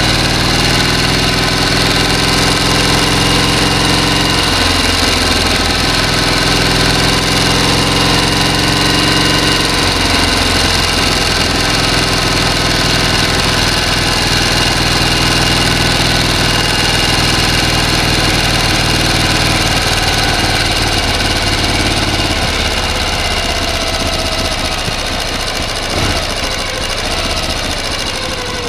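A motor running steadily, its pitch shifting a few times. In the last several seconds its pitch drops and it gets a little quieter, with a single knock shortly before the end.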